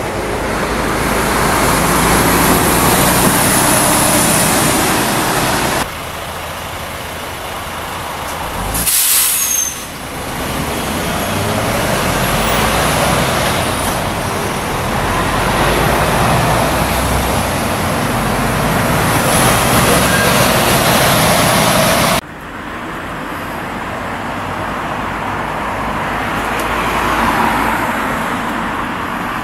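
Busy road traffic passing the roundabout: a steady rush of tyres and engines that swells as vehicles go by, with a brief sharp whoosh about nine seconds in. The noise drops off abruptly twice, about six seconds in and past the twenty-second mark.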